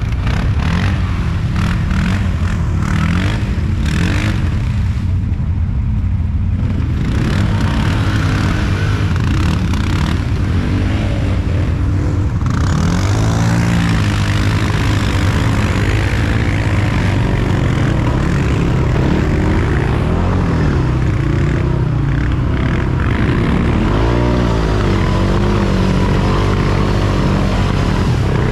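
ATV engine running steadily close by. Engine revs rise and fall about halfway through and again twice near the end.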